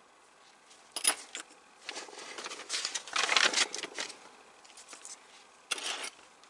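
Handling noises from a small screwdriver and a plastic dashboard part of a scale model car kit being put down on a cutting mat: a sharp clink about a second in, then a few seconds of rustling and scraping, and another short rustle near the end.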